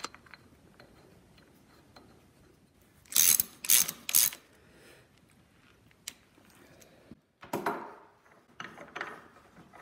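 Socket ratchet clicking in three short runs about three seconds in, as the bolts of a Ford Model A transmission's main shaft bearing retainer are run down. Fainter metal ticks and a duller knock follow later.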